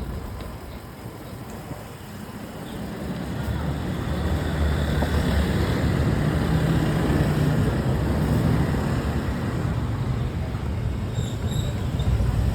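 Rushing wind and rolling noise from a Giant Contend SL road bike on the move, swelling over the first few seconds and then holding steady. The abnormal noise the bike is being checked for cannot be picked out.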